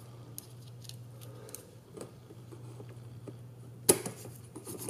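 Light clicks and taps of small drone-frame parts, M3 aluminium screws and a hex driver being handled during hand assembly, with one sharp click about four seconds in. A low steady hum runs underneath.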